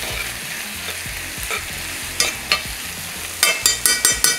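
Diced onion and pancetta sizzling in a cast iron pan while being stirred with a metal spoon. A couple of knocks a little past halfway, then a quick run of about six ringing metallic clicks near the end as the spoon strikes the pan.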